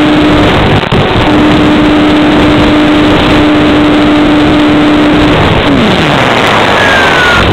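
Heavy wind noise and a steady electric motor-and-propeller whine picked up by an FPV model airplane's onboard microphone. About five seconds in the motor is throttled off and its tone slides down as the propeller spins down, followed by faint falling whistles near the end.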